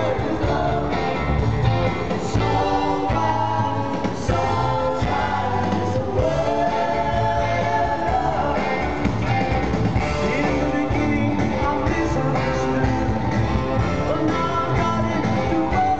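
Live rock band heard from the audience: a male lead vocal singing over a violin-shaped Höfner electric bass, electric guitar and keyboards, with a steady beat.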